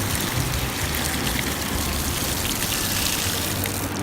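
Steady hiss of ocean surf washing up the beach, with fine crackling from the foam, cutting off abruptly at the end.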